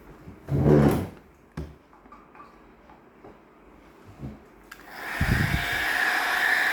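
A few handling knocks and thumps, then a click about three quarters of the way in as a hair dryer is switched on and starts blowing steadily.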